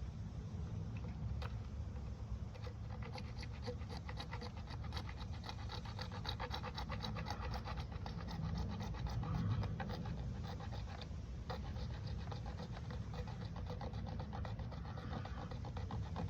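Hand hacksaw cutting through PVC irrigation pipe: a long run of quick rasping strokes, over a steady low rumble.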